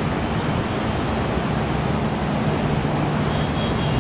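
Steady road traffic on a busy city street: car engines and tyre noise forming a continuous low rumble.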